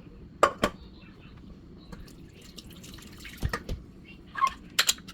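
Kitchen sounds: liquid dripping, with three pairs of sharp clinks, each pair about a fifth of a second apart, over a faint steady background.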